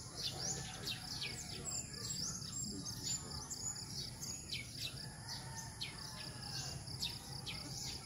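Morning chorus of tropical birds: many short, sharp chirps that sweep downward, repeating throughout, over a steady high-pitched insect buzz.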